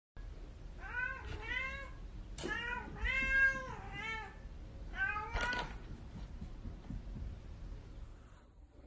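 A golden British Shorthair cat meowing in short calls that rise and fall in pitch, in three quick groups.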